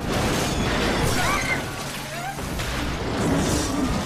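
Film sound effects of a train crash: a continuous din of crashing metal and shattering glass, with a few brief high screeches about a second in and again near two seconds.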